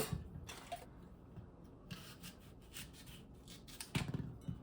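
Faint kitchen handling sounds as smoothie ingredients are handled: light rubbing and small scattered taps, with a soft knock about four seconds in.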